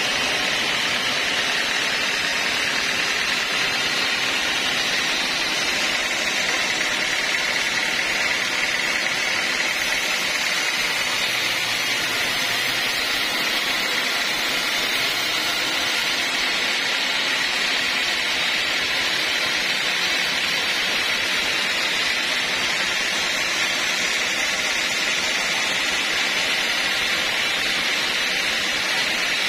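Homemade band sawmill running steadily, its band blade sawing through a mahogany log with an even, high hiss.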